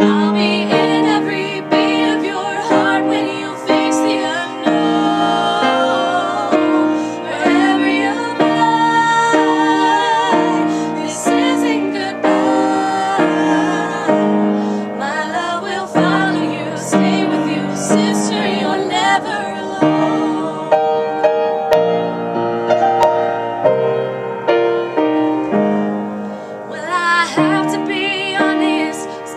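Two women singing a duet with vibrato, accompanied by a grand piano playing steady, evenly paced chords.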